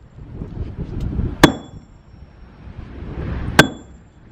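Two heavy blows of a maul on a thick concrete slab, about two seconds apart. Each lands with a sharp crack and a short metallic ring from the hammer head.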